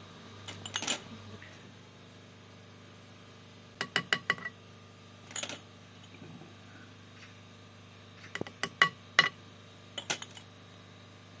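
Metal kitchen utensils clinking against dishes or cookware in short clusters of sharp, ringing clinks a few seconds apart, loudest about three-quarters of the way through. A faint steady low hum runs underneath.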